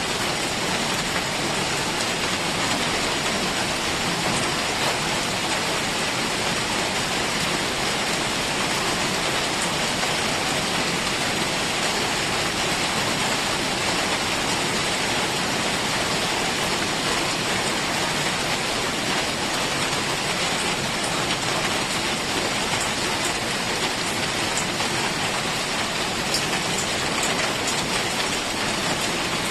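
Heavy rain falling steadily, an even dense hiss with faint drop ticks.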